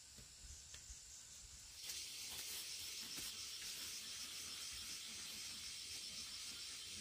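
Insects calling in a steady, high, buzzing chorus that grows louder about two seconds in, with a few faint low knocks beneath.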